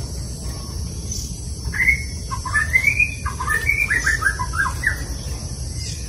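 Caged budgerigars chirping: a quick run of short rising and falling chirps from about two seconds in to about five seconds in, over a steady low background rumble.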